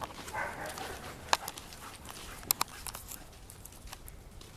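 A dog on the move: a short breathy huff near the start, then two sharp clicks about a second apart over faint background noise.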